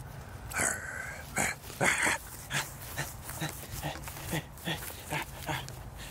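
Dogs at play: a string of short, sharp dog vocalisations, with a few louder ones in the first two seconds and then a quicker run of about three a second.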